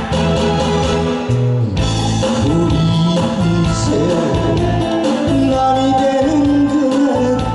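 A male singer singing into a handheld microphone over an instrumental accompaniment; after about two seconds of instrumental music, his voice comes in.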